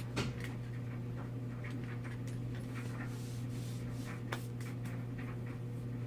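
Small screwdriver working a stubborn screw in a camera body: scattered light clicks and scrapes of metal on the small screw, over a steady low electrical hum.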